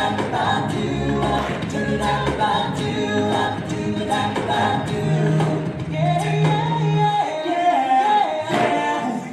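Music from the routine's mix: a group of voices singing a cappella in harmony, holding stepped, sustained notes.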